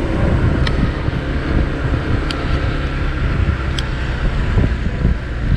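Motorcycle being ridden along, its engine running under heavy wind rumble on the microphone. Three short high clicks come about a second and a half apart.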